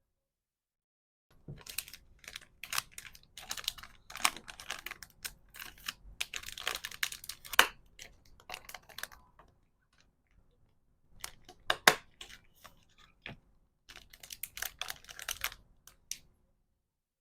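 Order packing by hand: quick clicks, taps and light crinkles of small plastic items and packaging being handled, in busy runs. It starts about a second in, pauses briefly near the middle, comes back in two shorter runs and stops shortly before the end.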